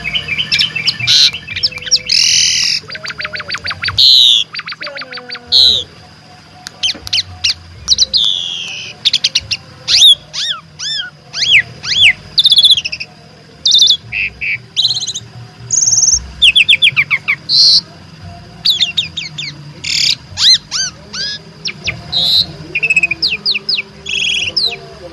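Javan pied starling (jalak suren) singing loudly and without a break, a long varied song of clear whistles, arched and sliding notes and fast rattling trills, including mimicked phrases ("isian").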